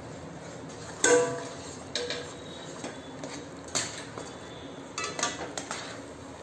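A metal spatula scraping and knocking against a metal kadai while stirring rice flour into boiling milk and water for kozhukattai dough. A loud ringing clank comes about a second in, followed by several more knocks, with a quick cluster of them near the end.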